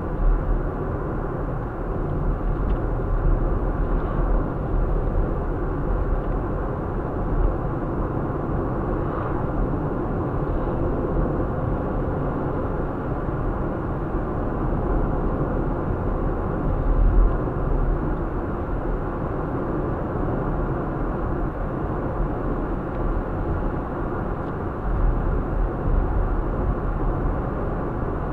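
Steady road and engine noise of a car driving on a country road, heard from inside the car, with a low rumble and one brief louder bump about two-thirds of the way through.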